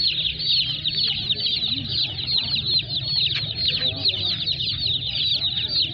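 A crowd of day-old chicks peeping all at once: a dense, unbroken chorus of short, high cheeps, each falling in pitch.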